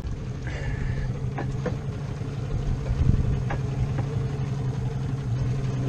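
Boat engine idling steadily, a low even hum, with a few faint light knocks about a second and a half in, again shortly after, and once more past the three-second mark.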